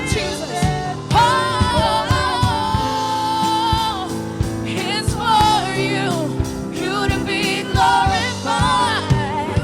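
Live gospel worship music: singers holding and bending long sung notes over a band with held keyboard chords and regular drum hits.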